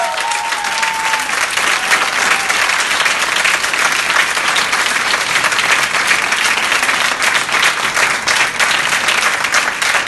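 A crowd applauding with steady, dense clapping, with a voice calling out over it at the start.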